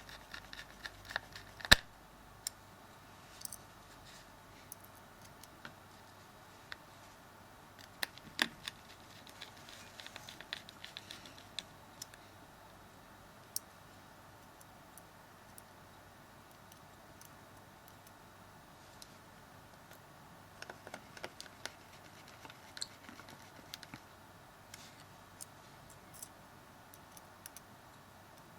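Small clicks and taps of a small Phillips screwdriver and hands working on a Samsung Galaxy S3's plastic body, coming in scattered clusters. About ten seconds in there is a quick run of small ticks.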